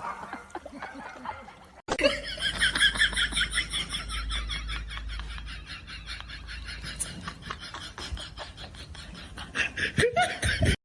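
A person laughing in a long run of quick, high-pitched giggles, starting suddenly about two seconds in and fading toward the end.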